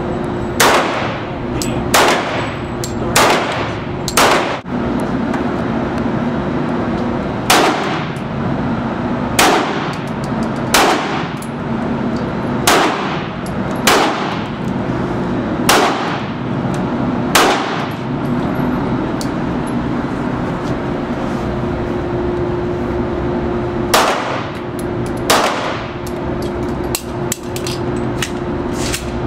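Handgun shots fired one at a time on an indoor shooting range, each echoing off the walls, about one to two seconds apart with a pause of several seconds past the middle. A steady hum runs underneath.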